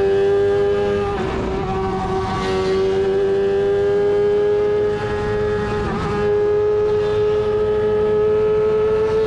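Nova NP 03 CN sports prototype's engine pulling hard at high revs, its pitch climbing slowly, with short breaks about a second in and about six seconds in that fit quick gearshifts. Wind rushes past the open cockpit underneath.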